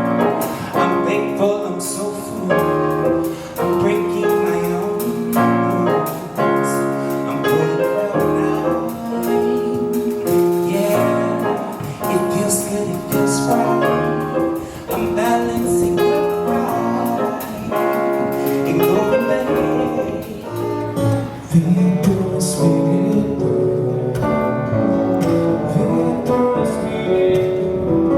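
Music: piano with singing voices performing a song.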